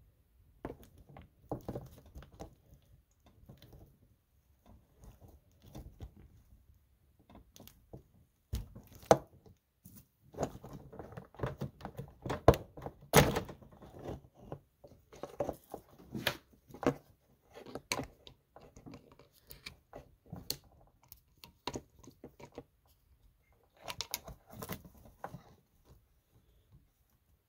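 Hands handling a snowmobile fuel pump and its rubber fuel hoses and clamps: scattered, irregular clicks, taps and knocks of parts, with the loudest knock about halfway through.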